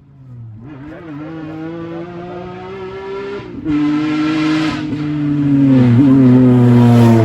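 Rally car engine at full throttle, the note climbing, then dropping sharply at an upshift about three and a half seconds in. It grows louder as the car approaches, loudest near the end.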